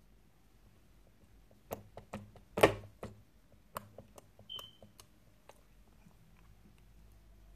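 Slime being pulled and scooped by hand out of a clear plastic palette's compartments: a quick run of sticky clicks and pops starting about two seconds in, the loudest soon after, with a brief high squeak midway.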